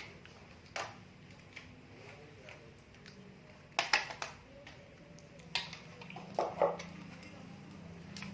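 Sharp plastic clicks and knocks of RJ45 plugs on a freshly crimped network cable being pushed into a LAN cable tester and the tester handled: one click under a second in, a cluster of several about four seconds in, then more around five and a half and six and a half seconds.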